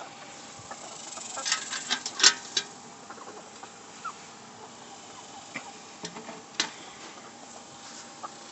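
A handful of sharp clicks and taps in quick succession about a second and a half in, and one more click later, over a faint steady hum.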